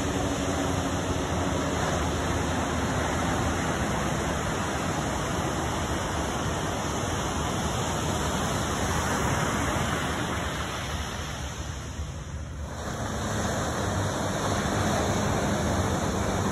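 Steady rushing noise that eases for a moment about eleven to twelve seconds in.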